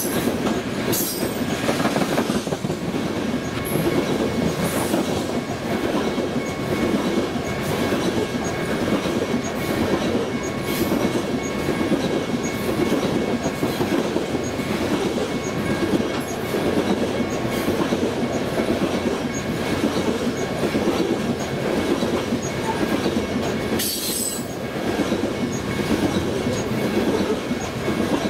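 Aluminum coal gondolas of a BNSF coal train rolling past close by: a steady rumble of steel wheels on rail with rhythmic clacking as the trucks cross rail joints. A faint steady high squeal of wheels runs underneath, and a few sharp clicks stand out, the loudest near the end.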